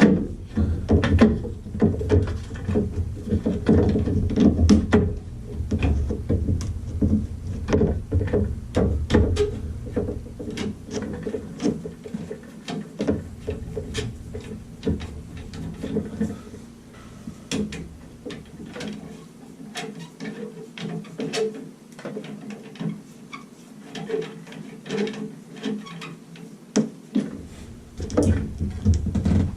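Repeated clicks, knocks and scraping of hand tools working a stuck threaded part of a Moen tub and shower valve, with a low rumble under the first dozen seconds.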